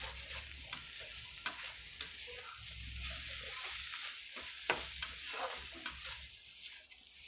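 Flat spatula stirring and scraping shredded chicken fry around a black kadai, with a steady sizzle of frying oil and scattered clicks of the spatula against the pan. The moisture has cooked off and the oil has separated, so the chicken is frying dry in its oil.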